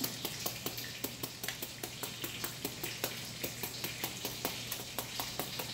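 Kitchen knife chopping quickly into a peeled green papaya held in the hand, about five sharp taps a second. This is the Thai hand method of hacking shreds from the fruit for papaya salad.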